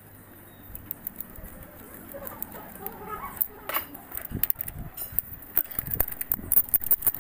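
Socket ratchet clicking as an ignition coil's 10mm bolt is undone, with small metallic taps of the tool; the clicks come in quicker runs near the end.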